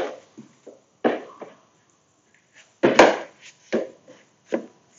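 Hands working butter and flour in a mixing bowl: a series of irregular short knocks and scrapes as fingers and the bowl's side are worked, the loudest about three seconds in.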